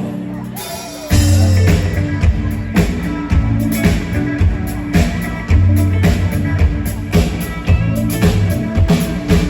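Live rock band playing an instrumental passage between sung lines: after a quieter first second, the drum kit and bass come in and the full band plays on loud.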